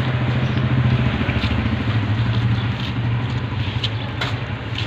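Kitten growling low and without a break as it eats, the possessive growl of a hungry stray guarding its food, with a few sharp clicks of dry kibble being crunched.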